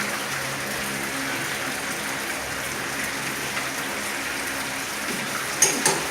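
Pot of fish soup boiling on the stove: a steady bubbling hiss, with a few sharp clinks near the end.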